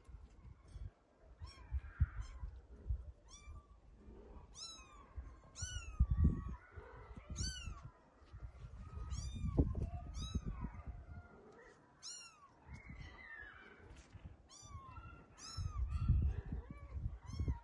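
Kitten meowing over and over: short, high-pitched mews, each rising and then falling, roughly one a second. Low rumbling noise comes in between some of the calls.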